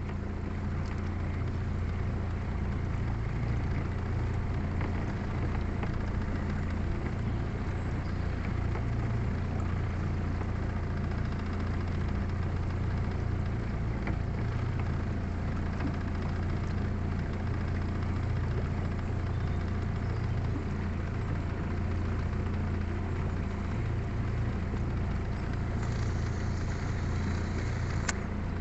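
Small motorboat's engine running steadily at low speed with an even low hum.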